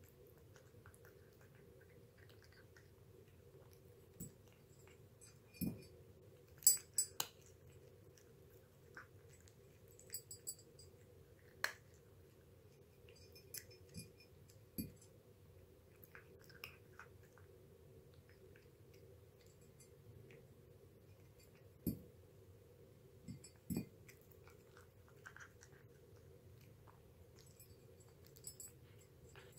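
A cat eating from a ceramic bowl: quiet chewing with scattered sharp clinks against the bowl, over a steady low hum.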